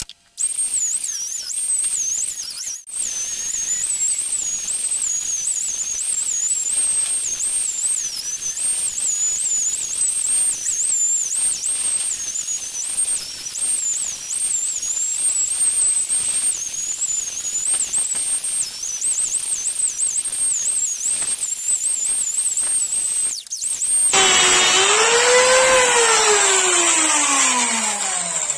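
Angle grinder fitted with a buffing pad polishing an aluminium Yamaha RX100 engine case cover: a high motor whine that wavers as the pad is pressed against the metal. Near the end the whine gives way to a lower tone that falls steadily as the grinder winds down.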